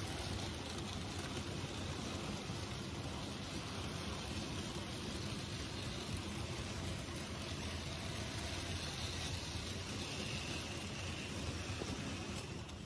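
OO gauge model railway goods wagons rolling past on sectional track: a steady rattling rumble of small metal wheels on the rails and rail joints, easing slightly near the end as the brake van passes.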